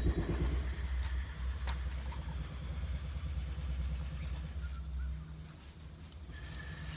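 Low, steady engine rumble of a motor vehicle, easing off about five seconds in, with a few faint clicks.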